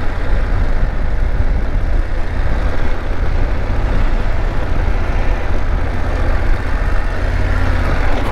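Motorcycle engine running steadily in third gear at low speed, with a strong low rumble and the hiss of riding along a block-paved street.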